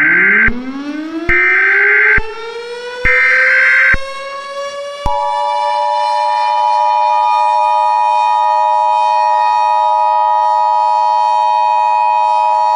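Emergency Alert System broadcast tones: three short bursts of the digital header, then about five seconds in the steady two-tone attention signal, held to the end. Under them a civil defense siren winds up, rising steadily in pitch over the first few seconds and then holding a steady wail.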